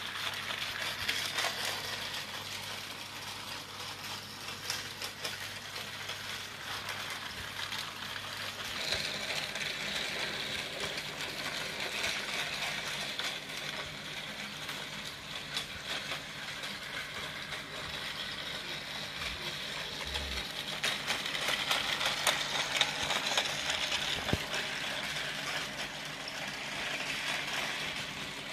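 Battery-powered Tomy toy trains running on plastic track: a steady whirring of the small motors and gears, with the wheels rattling and clicking over the track. It swells and fades as the trains come close and move away.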